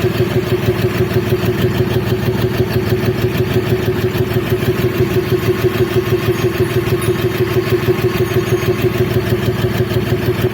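BS6 Cummins diesel engine idling with an even, rhythmic beat of several pulses a second. This is the abnormal engine sound that the mechanic takes as the sign of the vehicle's very poor fuel mileage, with no fault code stored.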